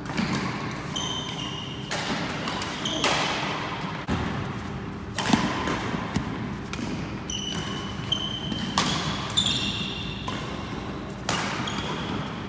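Echoing sports-hall sounds of badminton play: a scatter of sharp knocks and thuds ringing in the hall, with short squeaks of shoes on the wooden court floor.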